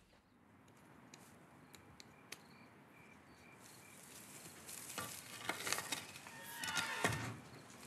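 Hay rustling and crackling in bursts as it is worked with a pitchfork, starting about five seconds in. Before that it is quiet, with a few faint clicks and a faint, evenly repeated high chirp.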